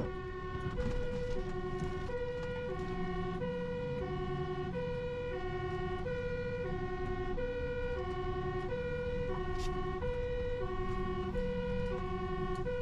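Fire truck's two-tone siren switching evenly between a lower and a higher note about every two-thirds of a second, with the truck's engine running underneath, heard from inside the cab.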